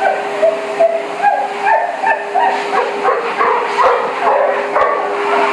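Basset hound crying out in short, pitched yelps and whines, two or three a second, unhappy at being bathed, over the steady hum of a pet-grooming dryer blower.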